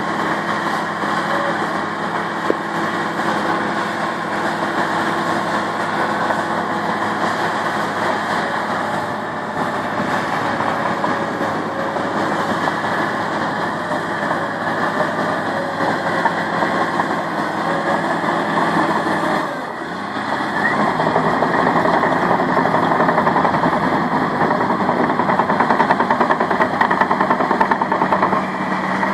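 Caterpillar D6M bulldozer's diesel engine running steadily as the machine works. About twenty seconds in the sound dips briefly, then comes back louder.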